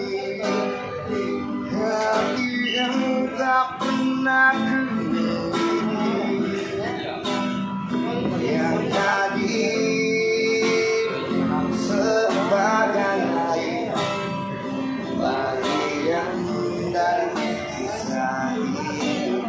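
A man singing a slow song to his own strummed acoustic guitar, with the voice and regular strums throughout.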